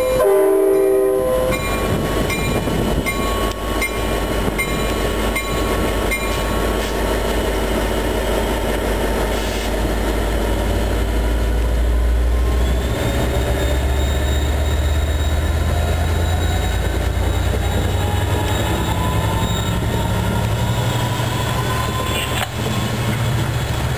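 A train passing close by. A diesel locomotive horn chord ends about a second and a half in, then comes the steady rumble of the cars rolling past with regular clicks of wheels over rail joints and a faint wheel squeal. A locomotive engine's low drone grows louder in the second half.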